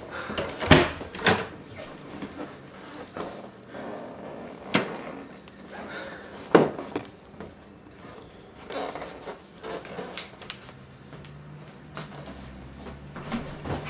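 Scattered sharp knocks and bumps in a small room, with four louder ones in the first seven seconds and fainter ones after.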